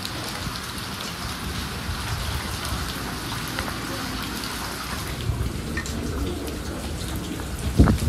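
Heavy rain pouring onto standing floodwater and hard surfaces, a steady hiss of drops. Low rumbles come through, with a loud low thump near the end.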